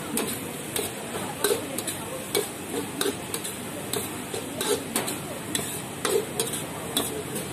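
Metal wok spatula scraping and clanking against a steel wok as fried noodles are stir-fried, irregular strikes about twice a second over a steady sizzle.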